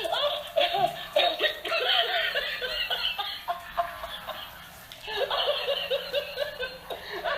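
Laughing toy playing its recorded laughter: quick runs of high-pitched ha-ha syllables, dying down briefly around the middle before starting up again.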